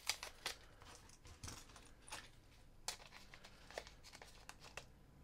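Faint plastic packaging being handled, in short scattered crinkles and clicks.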